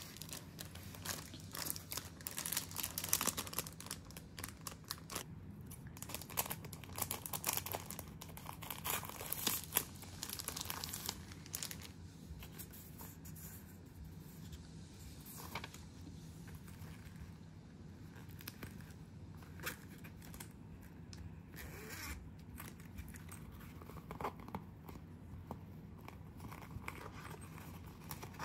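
Plastic packaging and paper leaflets crinkling and rustling as items are handled and unwrapped. It is busiest through the first ten seconds or so, then lighter handling with a few sharp clicks.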